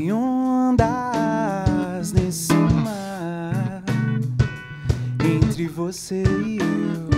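A live band playing: a gliding, bending lead melody over electric bass and drums.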